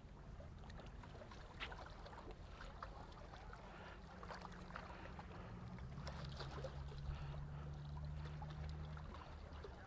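Lake water lapping, with scattered small splashes and clicks. A low, steady motor hum comes in about four seconds in and stops about a second before the end.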